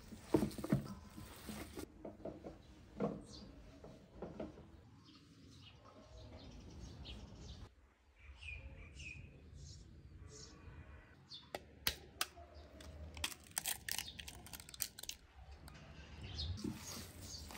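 Bare hands squishing and kneading raw minced meat in a stainless-steel bowl, then small birds chirping, and a cluster of sharp clicks in the second half.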